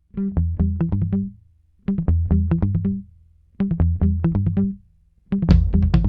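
Music: three short phrases of quick, bass-heavy notes with brief gaps between them, then fuller music with drums comes in about five seconds in.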